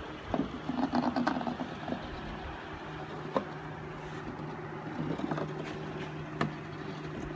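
A small metal pencil compass handled and scraped on a plywood board: a flurry of scraping and small knocks in the first two seconds, then two sharp clicks about three seconds apart, over a steady low hum.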